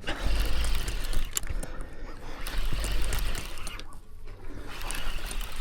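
Sea water washing and splashing at the shoreline, with a low rumble that comes and goes.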